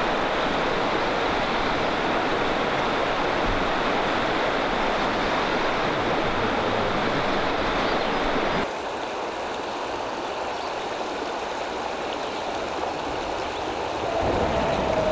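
Shallow river water rushing over stones in a riffle, a steady even noise; it drops a little in level and thins about nine seconds in.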